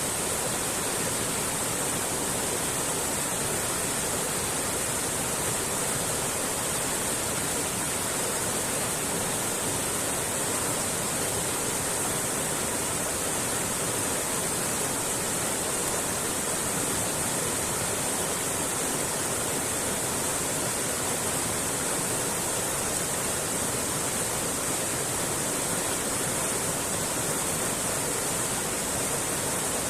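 Mountain creek flowing over rocks, a steady, even rush of water.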